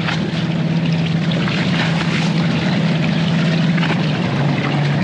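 Fishing boat's engine running steadily: a low hum under a constant rush of noise.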